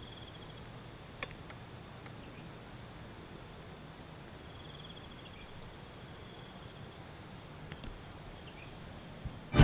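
Insects chirring in a steady high-pitched chorus with a pulsing rhythm, joined midway by a fainter trill for a few seconds. Two faint clicks in the first second or so.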